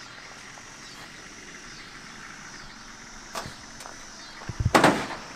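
Ford 460 V8 in a 1979 F-150 running faintly and steadily, with a couple of small knocks and then a short burst of loud bangs near the end.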